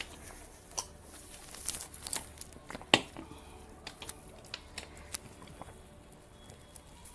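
Glasses being handled and drunk from at a table: scattered small clicks and knocks, with one sharp knock about three seconds in.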